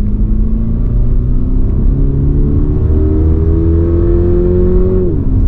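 Toyota GR86's 2.4-litre flat-four engine pulling in gear, its pitch climbing steadily, then dropping sharply near the end as the six-speed automatic shifts up.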